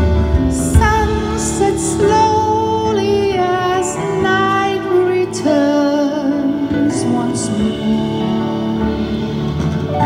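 Live band music: a woman sings a slow melody in long, wavering held notes over keyboards, bass and drums.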